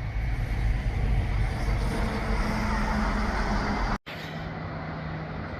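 Steady road traffic noise from vehicles on a highway, heaviest in the low rumble. It cuts off abruptly about four seconds in and resumes quieter and steadier, with a faint hum.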